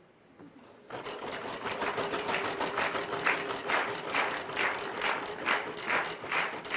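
Game-show prize wheel spinning, its pointer flapper clicking against the pegs. The clicking starts about a second in, rapid at first, and slows as the wheel coasts down.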